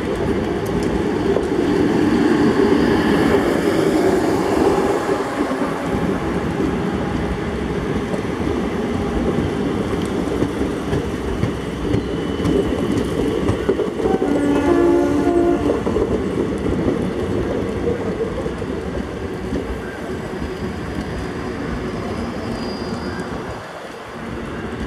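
Indian Railways passenger coaches rolling slowly past, their wheels clattering over the rail joints in a steady rumble that slowly fades toward the end. A short horn sounds for about a second and a half, about 15 seconds in.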